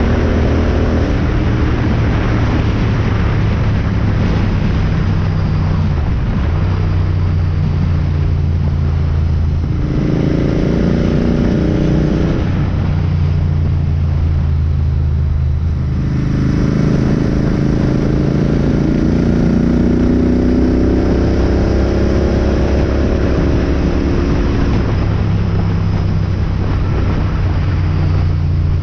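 Royal Enfield GT 650's 648 cc parallel-twin engine running hard under the rider, its pitch rising and falling as the throttle opens and closes, easing off for a few seconds around the middle, with wind rush over it.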